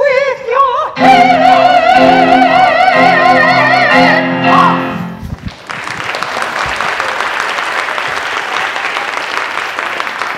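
The last sung note of a musical-theatre song, held with a wide vibrato over instrumental accompaniment, ending about five seconds in. An audience then applauds.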